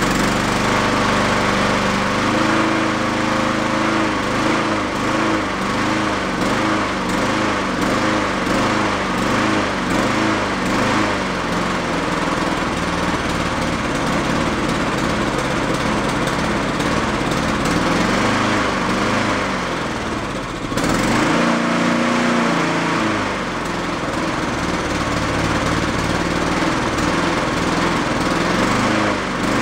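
Honda Harmony 216 lawn mower's small single-cylinder engine running just after starting, its speed rising and falling about once a second: it is hunting (oscillating), because the idle circuit is not working even with the main jet drilled slightly larger. About two-thirds of the way through it briefly runs faster and louder, then goes back to surging.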